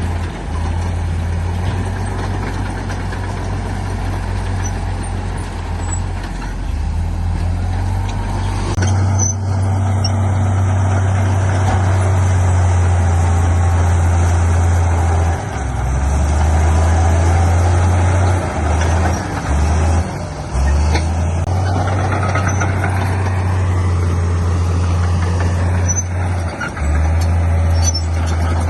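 Diesel engines of heavy earthmoving machinery, a bulldozer and dump trucks, running under load with a deep steady rumble. The rumble dips briefly several times in the second half as the load changes.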